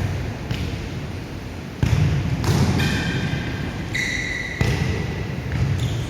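Futsal ball thudding on an indoor court, with sharp thumps about two seconds in and again near five seconds. Short high shoe squeaks come in between them, over the court's reverberant rumble.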